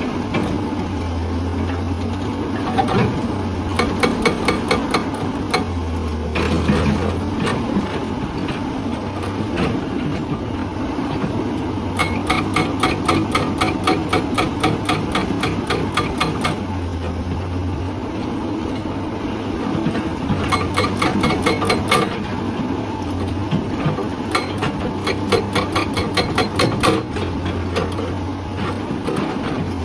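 Hydraulic breaker hammer on a Hyundai excavator pounding rock in runs of rapid, evenly spaced blows a few seconds long, over the steady drone of the excavator's diesel engine.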